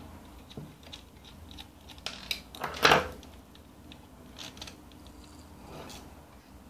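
Small clicks and scrapes of a hand tool working at the solder joints of a CRT TV power-supply board while a component is being desoldered, with one sharp, much louder snap about three seconds in.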